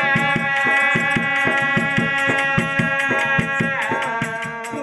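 Oggu katha folk music: a singer holds one long note that rises into place at the start and falls away about four seconds in, over a steady quick beat of drum and rattling percussion.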